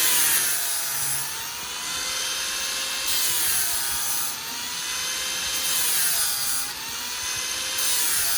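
Electric drill spinning the All American Sharpener's grinding stone against the edge of a steel mower blade: a steady motor whine over a high grinding hiss. The whine sags in pitch and recovers every few seconds as the stone bears on the blade.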